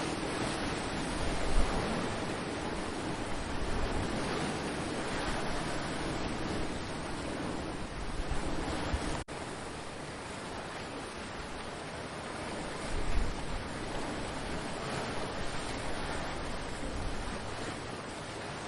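Ocean surf washing steadily on the shore, with wind buffeting the microphone in a couple of low bumps. The sound drops out for an instant about halfway through.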